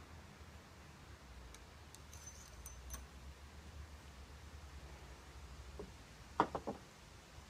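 Ramrod working down the barrel of a muzzle-loading underhammer percussion pistol to seat the load: a few faint clicks, then a quick run of three or four knocks about six seconds in.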